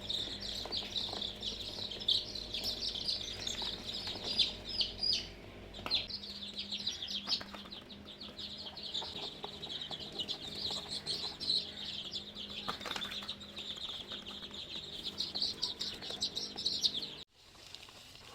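A large brood of three-day-old chicks peeping continuously, a dense chorus of high-pitched cheeps, that cuts off abruptly near the end. A low steady hum runs underneath for the first several seconds.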